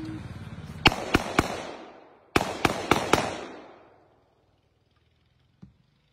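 Seven handgun shots outdoors, three quick ones about a second in and then four more about a second later, each trailing off in echo.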